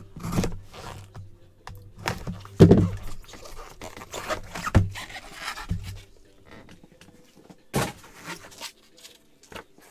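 Cardboard trading-card box being cut open and handled: the cardboard scrapes and rubs, with a few thuds and a sharp click as the inner box is slid out and set down. The loudest thud comes about three seconds in.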